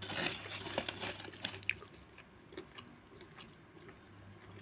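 A person chewing a large mouthful of hor mok, a steamed fish curry custard made with shark catfish, with soft wet clicks of the mouth. The chewing is louder in the first two seconds and quieter after that.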